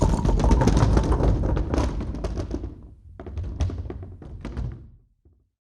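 Sound effect: a dense clatter of knocks over a deep rumble. It eases off about three seconds in, then a second, shorter burst dies away just before the end.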